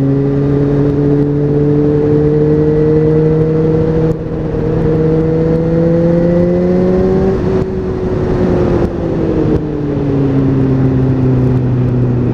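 A Kawasaki ZZR600 sportbike's inline-four engine running at cruising speed under the rider, over steady wind and road noise. Its pitch creeps up for the first seven seconds or so, drops as the throttle eases off around eight to ten seconds in, then holds steady again.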